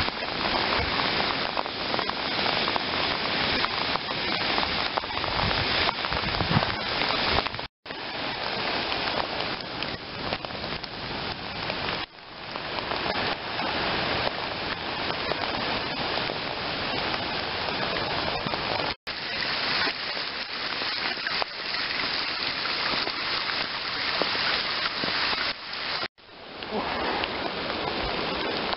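Heavy rain falling in a steady downpour hiss, broken by a few abrupt cuts.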